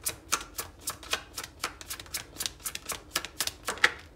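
Tarot deck being shuffled by hand: a steady run of crisp card clicks, about four or five a second, with one louder snap near the end as a card comes out of the deck.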